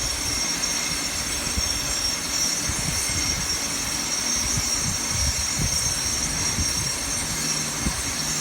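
Construction noise from building renovation work: a continuous mechanical whine with several steady high tones, over low, irregular knocks.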